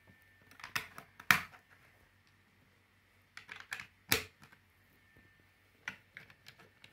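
Plastic Lego bricks clicking and knocking as they are pressed onto a baseplate: a string of sharp, irregular clicks, the loudest just over a second in and about four seconds in.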